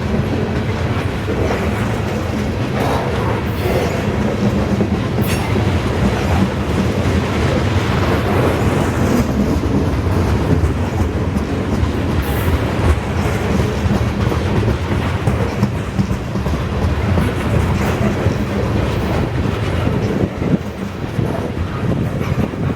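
A long CSX freight train rolling steadily past, its car wheels clicking over rail joints above a continuous rumble.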